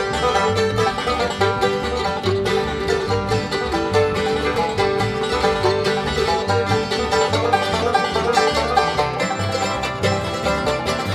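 Bluegrass string band playing an instrumental passage with no singing: banjo, fiddle, acoustic guitar and mandolin over a steady upright bass rhythm.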